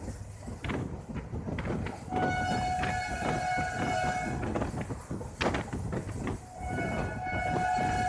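Horn of a WAP-4 electric locomotive sounding two long blasts, each about two seconds, one starting about two seconds in and one near the end. It is heard from an open coach window further back in the train, over the steady rumble and clatter of the coach wheels on the rails.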